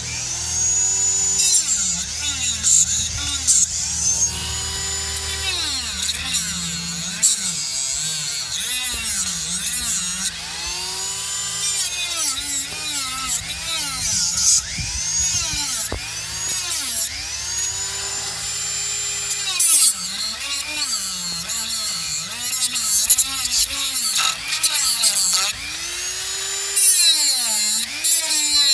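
Dremel rotary tool with a cut-off wheel cutting into deck wood beside a sunken hex bolt head. Its whine dips in pitch and recovers again and again as the wheel is pressed in and eased off in shallow back-and-forth cuts.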